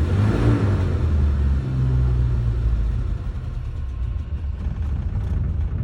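1990 Suzuki Sidekick / Geo Tracker four-cylinder engine falling back from a rev to a low, rough idle. It sags and gets quieter about halfway through, nearly stalling, the sign of the misfire and rough running that the owner is trying to diagnose.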